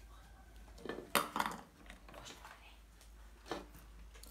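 Clinks and knocks as a small metal tin and a soldering iron are handled on a wooden workbench: a quick cluster of sharp clinks about a second in, and one more knock near the end.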